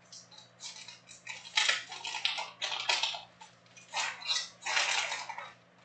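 Plastic wrapper of a Panini Prizm World Cup trading-card fat pack crinkling and tearing as it is opened by hand, in a series of sharp crackly bursts.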